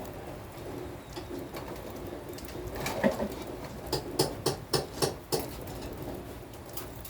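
Low bird calls with a run of about half a dozen sharp taps about three to five seconds in.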